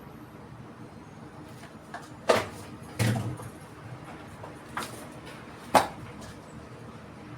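Four sharp clanks of kitchen utensils knocking, spread over a few seconds, over a steady low hum.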